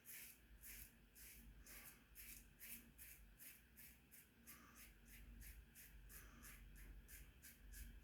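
Faint, quick scraping strokes of an injector razor cutting lathered stubble, about three strokes a second.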